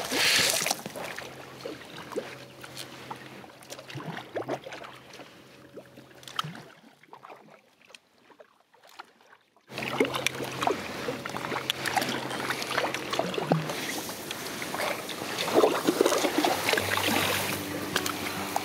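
Water splashing and dripping around an inflatable paddleboard, then, after a short quiet stretch, steady kayak-paddle strokes in the water with small knocks and clicks.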